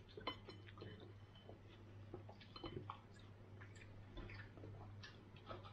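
Near silence: faint scattered clicks and chewing sounds of someone eating, over a steady low hum.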